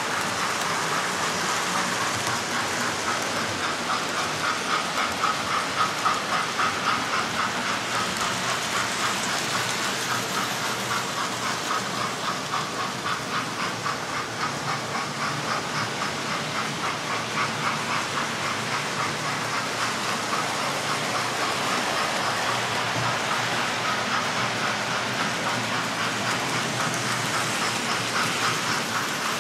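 Several model trains running on a model railway layout: a steady rattle of small wheels clicking fast over the track, with the whir of the locomotives' motors.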